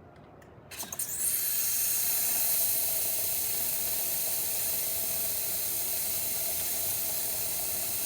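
Breville Dual Boiler steam wand opened about a second in: a few spits, then a steady, nice strong steam hiss. The strong flow shows healthy steam pressure from the steam boiler.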